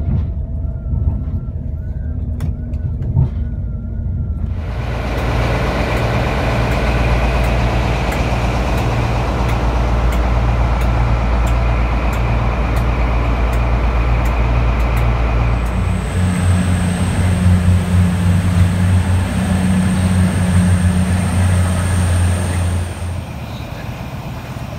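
Train noise, first a low rumble with a faint wavering whine from inside a moving train. Then at a platform comes the loud, deep, steady running sound of a test train's locomotives standing by: a Class 91 electric and a Class 43 HST diesel power car. About two thirds of the way through it changes to a steadier low hum with a thin high whine, and it quietens just before the end.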